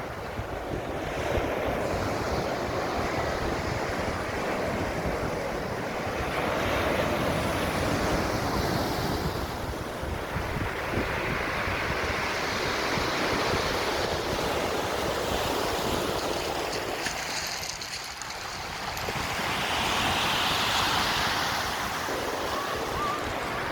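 Black Sea surf breaking and washing up the beach, swelling and easing every few seconds, with wind buffeting the microphone.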